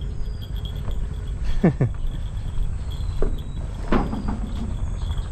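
Insects chirping in a steady, pulsing high band over a low constant rumble. Two short, loud squeaks falling sharply in pitch come about one and a half seconds in, and another falling call follows near the end.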